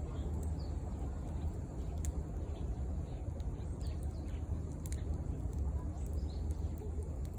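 Wood campfire crackling: irregular sharp pops and snaps over a steady low rumble.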